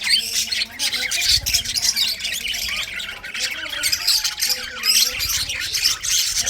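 Budgerigars chattering and chirping continuously: a dense, steady warble of high, overlapping chirps and squawks.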